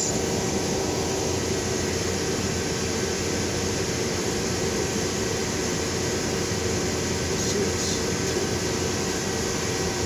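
Steady rushing noise of running air-conditioning equipment, with a faint even hum.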